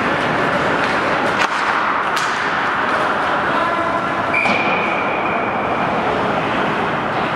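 Ice hockey rink sound during play: a steady wash of arena noise with two sharp clicks, typical of stick on puck, about a second and a half and two seconds in. A steady high tone sounds for about two seconds a little past the middle.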